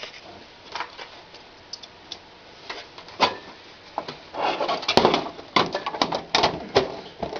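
Desktop PC case side panel being fitted back on: scattered clicks and scrapes, then a run of louder knocks and metal scraping from about four to seven seconds in as the panel slides and latches into place.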